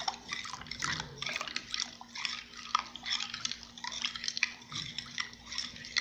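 Metal spoon stirring soapy liquid in a glass bowl: quick, irregular swishing and dripping, with light taps of the spoon against the glass.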